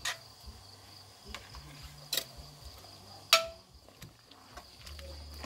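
A metal ladle knocks and clinks against an aluminium cooking pot a few times as the soup is stirred, the loudest clink ringing briefly about three seconds in. Crickets chirr steadily underneath.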